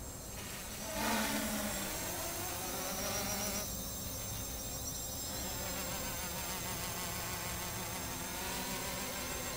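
Quadcopter's electric motors and propellers buzzing in flight. The buzz gets louder about a second in, and its pitch keeps wavering up and down as the motor speeds shift.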